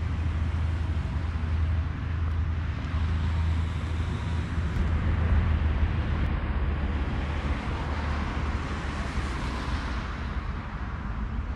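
Steady low engine rumble with a rushing noise over it; the low hum eases off and the rushing swells about eight to ten seconds in.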